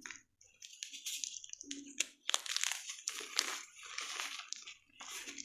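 Gym chalk being crushed and crumbled, giving crisp crunching and crackling in uneven bursts with short pauses between them. There is one sharp snap about two seconds in.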